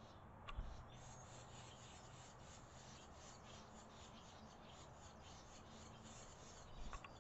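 Barn swallow nestlings begging as a parent comes to the nest to feed them: a fast, faint run of short, high calls, about five a second. A soft thump comes about half a second in and another near the end.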